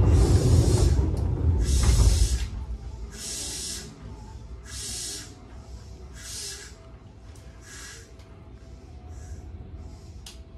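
Compressed air hissing from a stopped Seibu New 101 series electric train: a loud low rumble with hiss in the first two seconds, then short hisses about every one and a half seconds that grow fainter.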